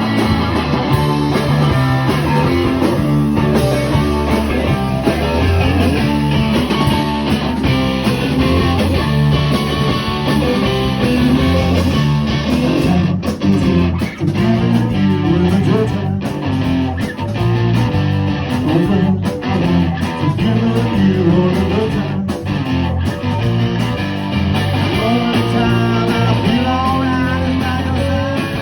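Guitar-led rock music with a steady beat.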